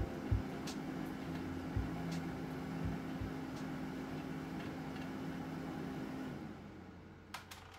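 A steady mechanical hum with a held tone and a few light knocks. The hum stops about six seconds in, and the sound drops to near quiet.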